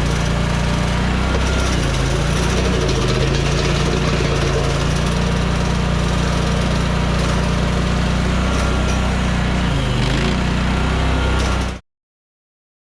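Mini skid steer engine running steadily with a hydraulic flail mower attached, its pitch sagging briefly twice as if under load. The sound cuts off abruptly near the end.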